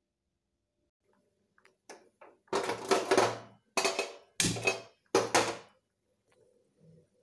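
A stainless steel pot being handled on a gas stovetop: a few light clicks, then four loud scraping, clattering knocks about half a second each, starting around two and a half seconds in.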